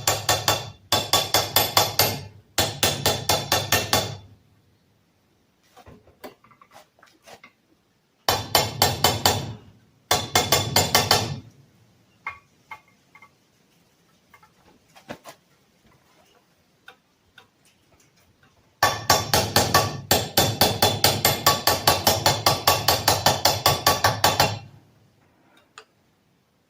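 Hammer tapping on a socket to drive an oil seal into a Robin 2PG golf cart engine's crankcase half, in runs of quick, even light strikes, about four or five a second, with short pauses between. The seal is being worked down gently so it seats flush and not cocked; otherwise it would leak.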